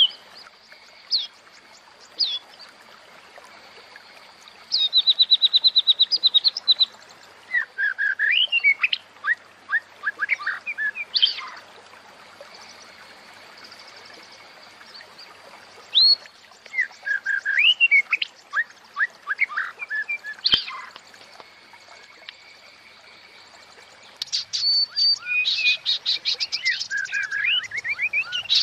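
Female white-rumped shama calling in bursts of quick high chirps and short rattling trills, with pauses between them and a faint steady high tone underneath. This is the female call played to bring a male shama into breeding condition.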